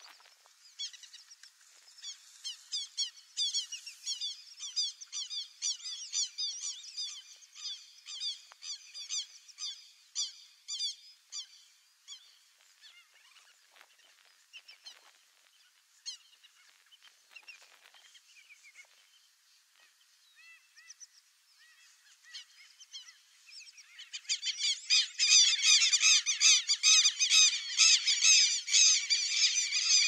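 White-backed stilts calling: quick runs of short, sharp, yapping notes. The calls thin out to scattered notes in the middle, then near the end become a dense, louder run of overlapping calls.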